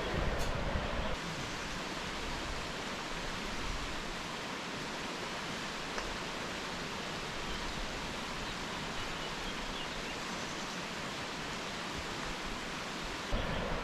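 River water flowing, a steady even rush with no let-up.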